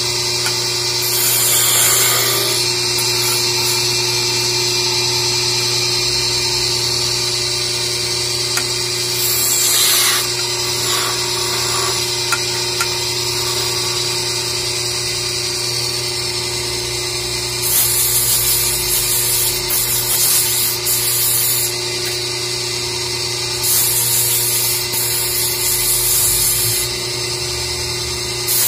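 Wood lathe running with a steady hum as it spins a wooden goblet. Sandpaper held against the turning wood hisses in several bursts, the longest two in the second half.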